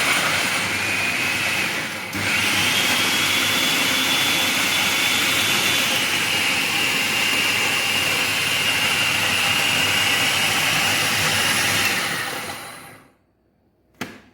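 Electric food chopper's motor running at high speed, its blade chopping torn bread slices into fine breadcrumbs, with a steady high whine. It stops briefly about two seconds in, restarts, and winds down near the end; a short click follows.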